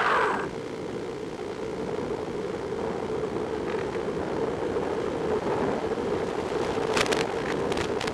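Easy Star RC plane's electric pusher motor winding down as the throttle is cut, then a steady rush of air over the airframe as it glides in with the motor off. A few sharp clicks near the end.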